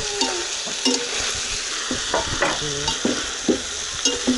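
Chopped onion, carrot and garlic frying with meat in a pot, a steady sizzle, while a spoon stirs and scrapes against the pot several times.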